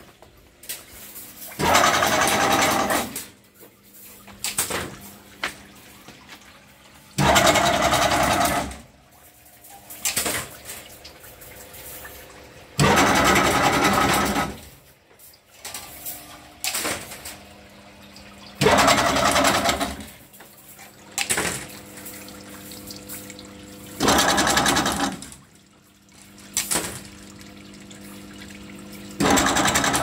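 Chain link fencing machine running in repeated cycles: a loud mechanical burst of about a second and a half comes roughly every five and a half seconds. Lighter clicks and a low hum fill the gaps between bursts.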